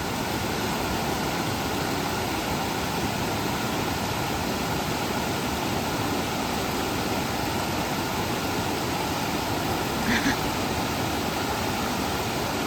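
Steady rush of fast-flowing mountain creek water.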